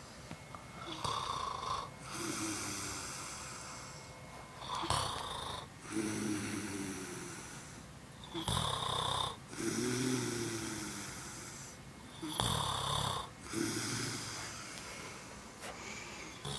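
A man snoring in his sleep: about four snores, one every four seconds or so. Each is a short harsh rasp followed by a longer droning tone that fades away.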